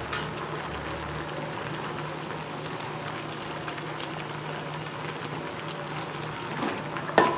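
Steady hissing crackle from a pot of boiled elephant apple slices on the stove, with one sharp metallic clink of the ladle against the aluminium pot about seven seconds in.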